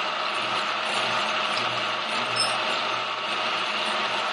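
Milling machine running a boring bar that cuts the inside of a new exhaust spigot on a Harley-Davidson Ironhead Sportster cylinder head: a steady machining noise from the turning spindle and tool.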